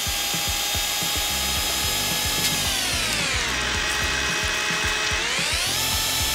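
Electric hand mixer whirring as its beaters whip frosting. Its whine slides down in pitch about halfway through, holds lower for a couple of seconds, then rises back to its earlier pitch near the end.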